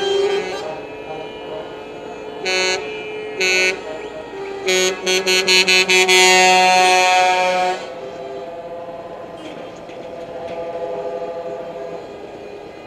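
Truck air horns sounding several notes at once: a blast at the start, two short toots, then a quick run of short toots running into one long blast that cuts off about eight seconds in. A quieter, steady vehicle sound follows.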